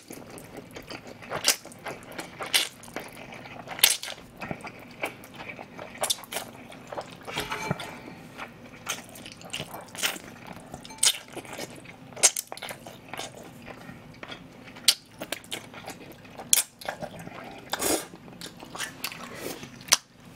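Close-up eating sounds of cold spicy chewy noodles: repeated loud, irregular slurps of noodles and wet chewing, with crunching from the fried topping bits.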